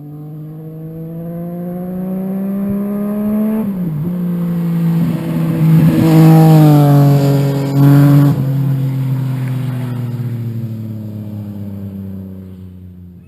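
A sport motorcycle's exhaust rising as it accelerates toward the mic, with a brief dip in pitch at a gear change about a third of the way in. It is loudest as it passes mid-way, then falls in pitch and fades as it rides away.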